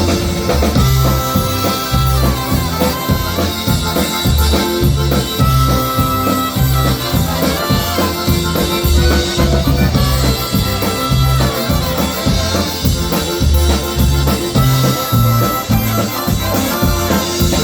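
Live polka band playing an instrumental passage to close out the song, over a pulsing bass line.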